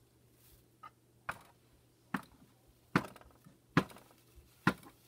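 Five sharp taps on hard plastic in an even rhythm about a second apart, from a doll being knocked along a toy dollhouse.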